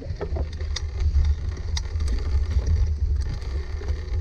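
Wind rumbling over the microphone of a bicycle-mounted GoPro as the bike is ridden across bumpy grass, with scattered clicks and rattles from the bicycle.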